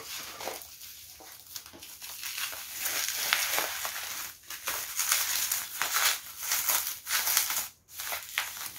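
Plastic bubble wrap crinkling and rustling as hands handle and squeeze a wrapped book, in irregular spurts with two short pauses.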